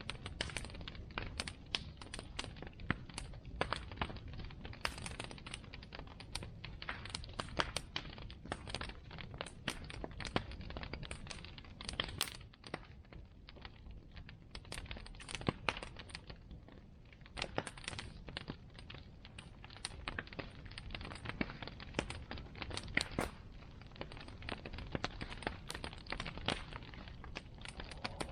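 Wood bonfire crackling: irregular sharp snaps and pops, several a second, over a low steady rumble.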